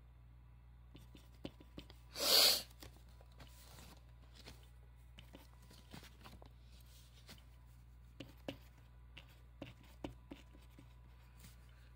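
Faint scratching and light tapping of writing on paper, in short irregular strokes. About two seconds in comes one loud, half-second rushing noise.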